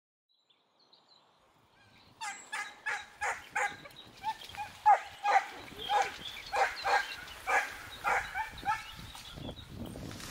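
Australian Shepherd barking in a string of high-pitched, excited yelps, about three a second at first, then more unevenly, dying away near the end.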